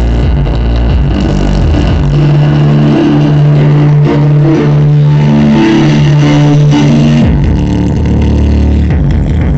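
Electronic music played loud through JBL A352HI 6.5-inch two-way coaxial car speakers mounted in a ported box. The deep bass drops out about two seconds in, leaving a held note and melody, and comes back in near the seven-second mark.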